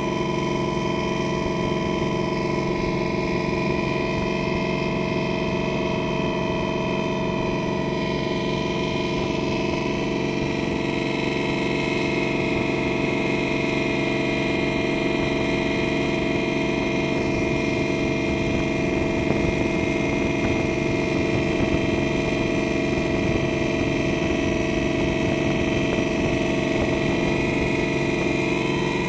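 A boat's engine running steadily at an even pitch, heard from on board.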